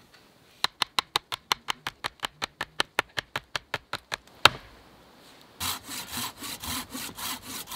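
A quick, even run of sharp wooden ticks, about seven a second for three and a half seconds, then one loud knock. Then a hand saw cuts into an upright sapling pole in quick rasping strokes near the end.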